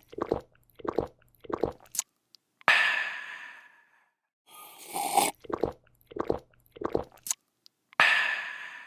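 A person drinking: three quick gulps, then a long, breathy refreshed 'aah' that fades away. Then a slurp, three more gulps and the start of another 'aah' near the end, in a repeating cycle.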